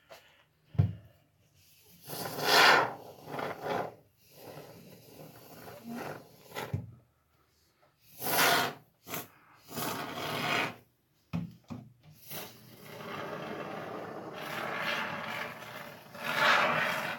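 Expanding foam spraying from an aerosol can through its tube in several hissing spurts, the last one longer, with two short dull knocks.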